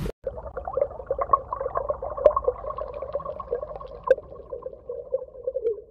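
Underwater bubbling, with a warbling tone and many small scattered clicks, plus two sharper clicks about two and four seconds in.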